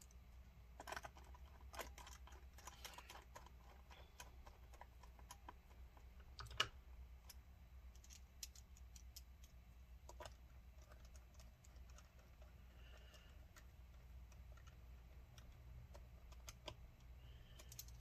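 Faint, scattered clicks and ticks of a small Phillips screwdriver driving the screws back into an HP Pavilion x360 laptop's bottom case, over a low steady hum.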